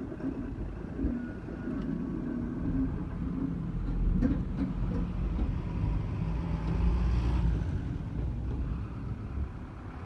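Low rumble and hum of Keikyu electric trains at a depot, with a short clank about four seconds in and a louder stretch near seven seconds.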